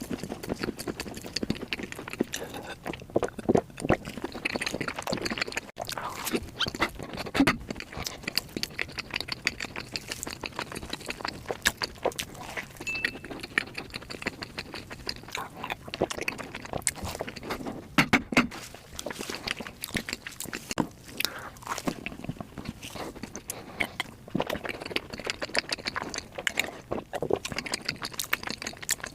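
Close-miked eating of matcha desserts: chewing and biting with many small, sticky mouth clicks, in an irregular run of short strokes.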